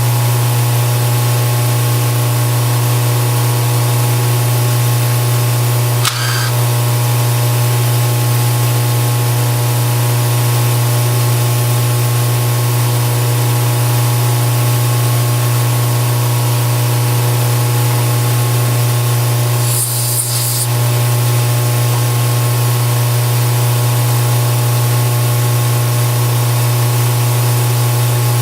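A machine's motor running steadily: a constant low hum with steady higher tones and a hiss over it. A brief higher-pitched sound cuts in about six seconds in and again about twenty seconds in.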